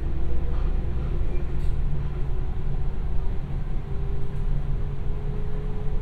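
Inside a JR West 221 series electric train under way: a steady low rumble of wheels on rail, with the traction motor whine slowly rising in pitch as the train gathers speed.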